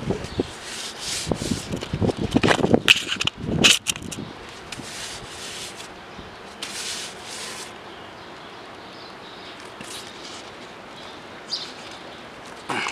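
Stiff-bristled wheel brush scrubbing an alloy wheel rim, with quick uneven strokes for the first four seconds, then softer and fewer strokes.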